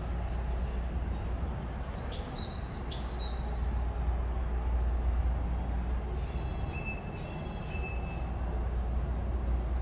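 Outdoor ambience: a steady low rumble, with two short high chirps that sweep up and hold, about two and three seconds in. Two longer high whistled notes follow a little after six seconds.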